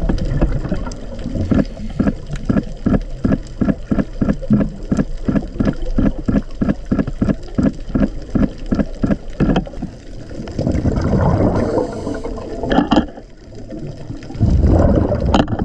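Scuba diver's exhaled bubbles from the regulator heard underwater: a rapid train of gurgling pulses, about three a second, for most of the first ten seconds, then two longer rushes of bubbling.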